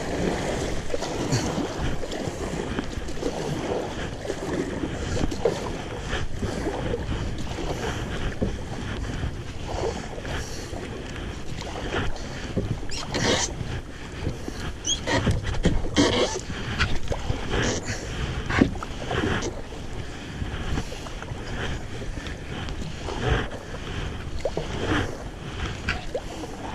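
Kayak paddles dipping and splashing in river water in irregular strokes, over steady wind rumble on the microphone.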